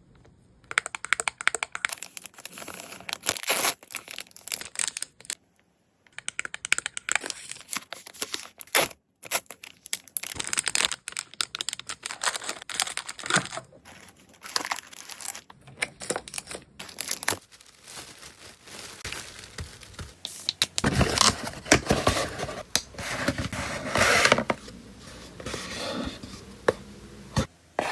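Packaging being handled up close: plastic and paper crinkling, rustling and tearing in short bursts, broken by small clicks and taps, busier and louder in the last third.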